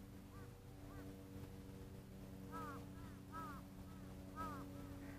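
A bird calling in short arched notes, a couple of soft ones at first, then louder calls in quick pairs over the next few seconds, over a faint steady low machine hum.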